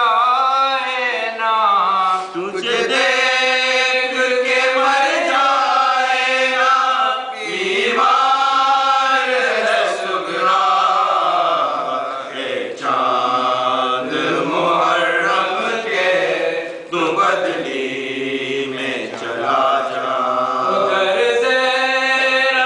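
Men's voices chanting an Urdu noha, a Muharram lament, together in long sung phrases without instruments.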